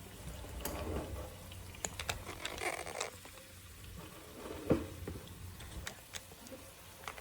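Irregular light clicks and scrapes of a utensil against a pot while stirring seasoning vegetables in hot olive oil, with one sharper knock about two-thirds of the way through.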